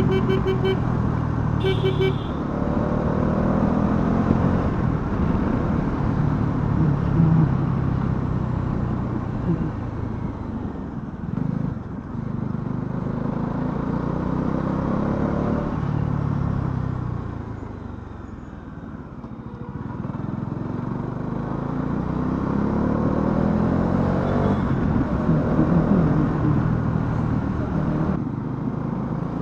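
Bajaj Dominar 400's single-cylinder engine under way, its pitch rising as it pulls through the gears and falling as it eases off, dropping low about two-thirds of the way through before pulling again. A horn beeps twice near the start.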